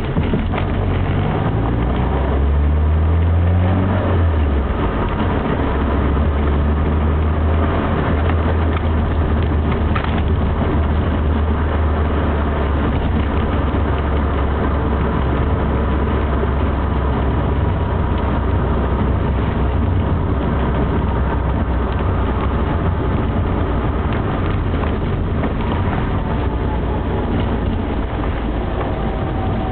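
Classic Mini's engine heard from inside the cabin, rising in pitch as it accelerates over the first few seconds, then running steadily, with a hiss of tyres on the wet road.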